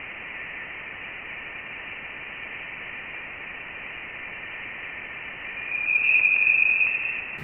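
Voyager 1's interstellar 'hum' recording, the spacecraft's plasma wave data converted to audio: a steady hiss with a thin high tone running through it, which grows louder about six seconds in.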